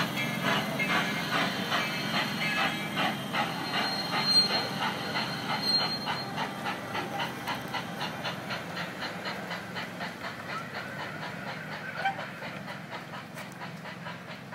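Quarter-scale miniature train running past on its track: an even, rapid clatter of about five beats a second over a steady rumble, fading as the train moves away.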